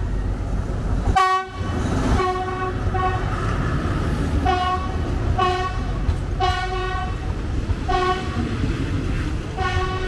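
Train horn sounding a string of short toots, roughly one every second or so, the first the loudest, over the steady low rumble of the train running on the rails.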